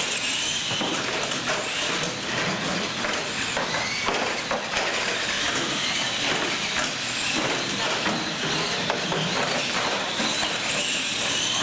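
Radio-controlled monster trucks racing on a concrete floor: a wavering high motor-and-gear whine with the rattle and clatter of the trucks and tires throughout.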